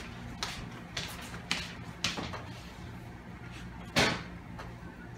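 A few short knocks and clatters of cookware, the loudest about four seconds in as a wooden spoon starts stirring spaghetti in a skillet, over a steady low hum.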